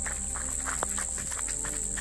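Quick footsteps crunching on a dry leaf-litter dirt trail, about four to five steps a second at a jogging pace, over background music, with a steady high-pitched drone.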